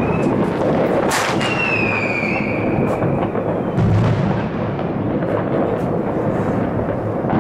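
New Year's Eve fireworks going off all over a city: a continuous din of crackles and bangs. A loud sharp bang comes about a second in, followed by a whistle that falls slowly in pitch over about a second and a half, as from a whistling rocket.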